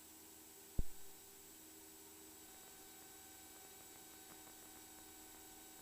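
Near silence on a squelched aircraft intercom line: a faint steady hum, with one brief click just under a second in.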